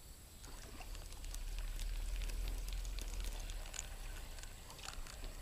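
Spinning reel being cranked to wind in the line after a missed hook set: faint small clicks from the reel, over a low rumble of rod and reel handling.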